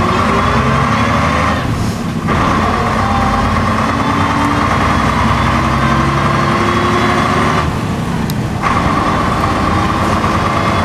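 AEC diesel double-decker bus engine and drivetrain running under way, heard from inside the bus, with a steady whine over the engine note. The whine and engine sound drop away briefly twice, about two seconds in and about eight seconds in, then pick up again.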